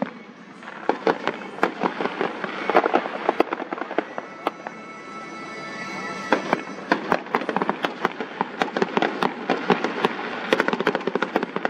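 Fireworks going off in quick succession: a dense run of sharp bangs and crackles, many a second, over a continuous rumble of bursts.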